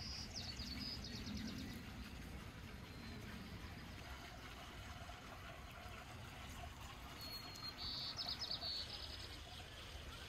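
A small songbird singing two short trills of rapid high repeated notes, one at the start and another about seven seconds in, over faint steady outdoor background noise.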